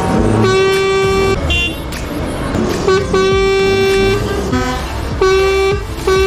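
Truck air horn blown in a string of blasts: held single-pitch notes of about a second each, with shorter toots in between.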